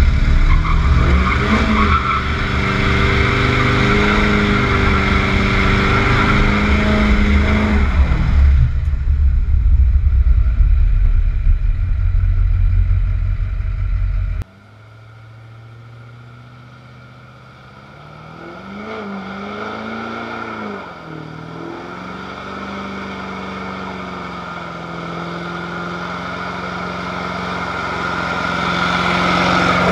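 Duramax V8 turbo-diesel pickup engine revving hard while driving, with heavy wind and road rumble on the microphone; it cuts off suddenly about halfway in. After that the engine is quieter, revs up a few seconds later, then builds steadily louder at high revs as the rear tires spin in a smoky burnout near the end.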